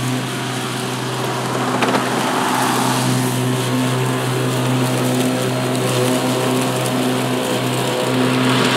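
PowerSmart 80V 26-inch cordless electric lawn mower with two side-by-side blades running and cutting thick grass: a steady electric hum under the hiss of the blades in the grass. It gets a little louder near the end.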